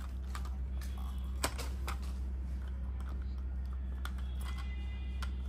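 Small plastic toy car being handled and pressed: scattered light clicks and taps, with one sharper knock about one and a half seconds in, over a steady low hum.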